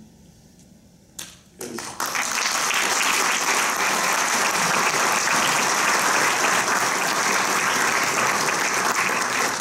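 Audience applauding: a few scattered claps, then steady applause from about two seconds in.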